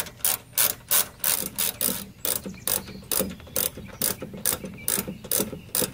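Hand ratchet with a 10 mm socket clicking steadily, about four clicks a second, as it backs out the bolts holding the headlight housing.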